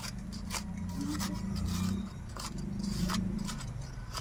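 Small knife blade scraping and scratching soil off a vinca plant's root ball in a series of short strokes. A low hum swells and fades underneath.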